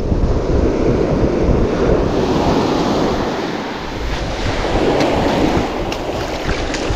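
Surf washing up the beach: a wave's foam sweeps in around the feet and drains back over the sand, a steady rush of noise that eases briefly about halfway through.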